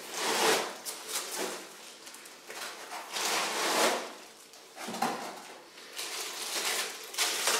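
Packing noises: white foam packing blocks rubbing and scraping against a cardboard box as they are lifted out, then a plastic-wrapped part rustling, in several separate swishing scrapes.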